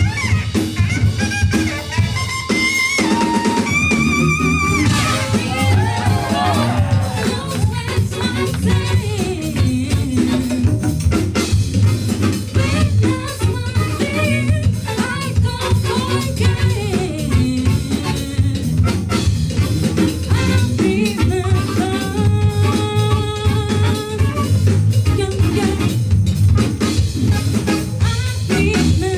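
A band playing jazz-funk fusion: drum kit, bass and keyboards with a wavering lead melody early on, and held chords coming in about two-thirds of the way through.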